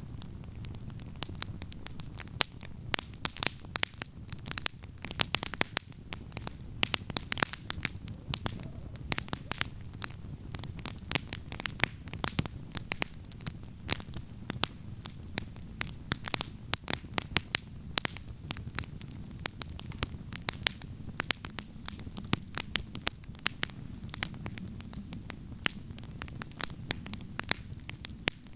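Wood campfire crackling, with dense, irregular sharp pops and snaps over a steady low rumble.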